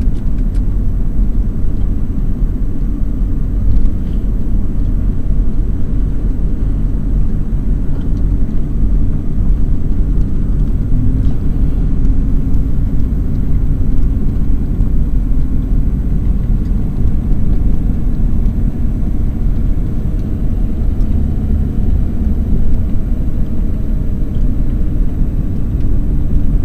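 Steady low rumble of a pickup truck driving at road speed, heard inside the cab: engine and tyre road noise.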